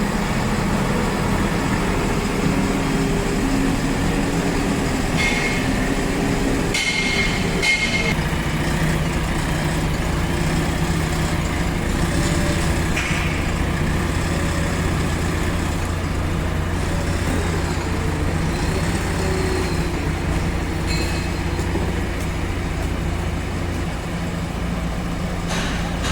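Diesel engine of a JCB 3DX Plus backhoe loader running steadily, its note dropping and deepening about eight seconds in as the load changes. Brief high-pitched squeals come about five and seven seconds in.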